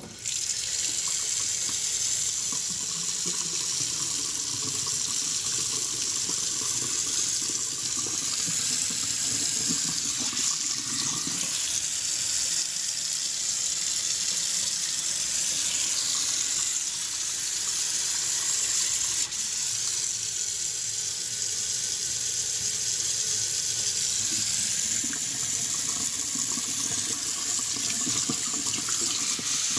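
Danco kitchen faucet turned on suddenly and left running steadily into the sink, water splashing into the basin. The faucet is being run to test it after its loose cartridge nut was tightened to stop a leak at its base.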